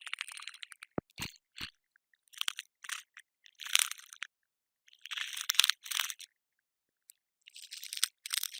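Cockroach skittering: short bursts of dry, crackly rustling, about five clusters with silent gaps between them, and three sharp clicks about a second in.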